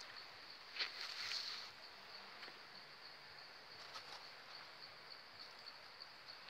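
A steady high insect trill that turns into an even pulsing in the second half. A brief rustle and scrape of handling comes about a second in, where a fish is being worked onto a bamboo skewer over leaves.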